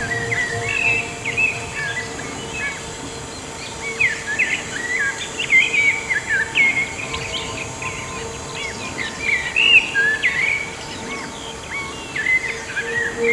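Songbirds singing and chirping: a busy run of short, quick notes that bend up and down in pitch, busiest in the middle.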